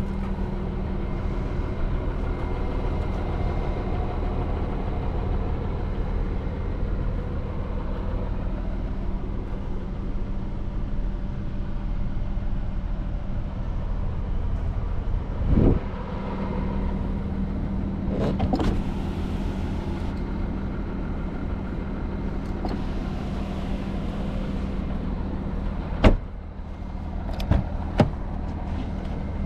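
Audi A6 Allroad's 3.0 TDI V6 diesel idling with a steady hum. A short thump comes about halfway through, and a few sharp clicks or knocks follow near the end.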